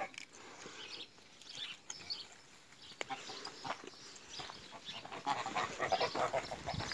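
A flock of domestic geese honking and gabbling. Scattered calls at first, then a denser, louder run of rapid calls in the last two seconds.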